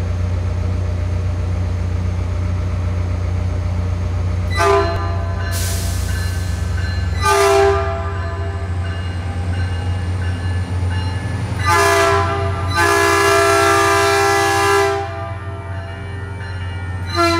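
Caltrain diesel locomotive's air horn sounding a series of blasts, two of them long and the others short, over the steady low rumble of the idling train.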